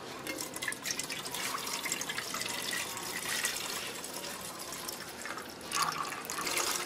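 Coconut milk trickling and splashing from a wire-mesh sieve into an aluminium pot as grated coconut is squeezed out by hand, getting louder for a moment near the end.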